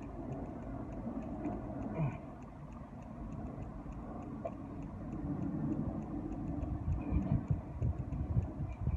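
A person chewing a mouthful of crispy fried chicken sandwich close to the microphone, the chewing heavier in the second half. A faint, regular ticking runs underneath, about three ticks a second.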